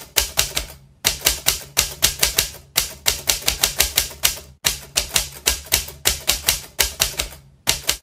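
Typewriter keystroke sound effect: rapid clacking keys at about six strokes a second, with a few brief pauses. It plays along with text being typed out on screen and cuts off abruptly when the typing ends.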